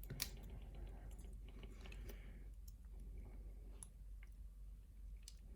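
Faint metallic clicks and scrapes of a metal shim being worked into a lock cylinder to release the core. One sharp click comes just after the start, then a run of small clicks, thinning out after about two and a half seconds.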